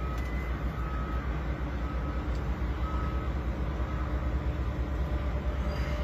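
Steady low rumble of a running vehicle, with a faint electronic beep repeating about once a second.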